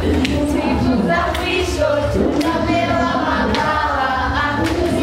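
A group of children singing together, with scattered hand claps over a steady low hum.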